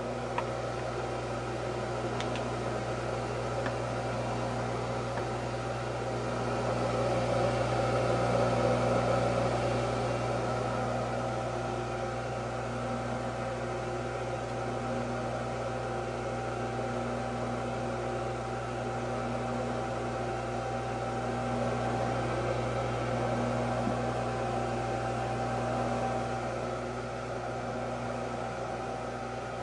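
Polishing machine with built-in dust collector running: a steady electric-motor hum over the rushing air of the extraction fan. It grows a little louder twice.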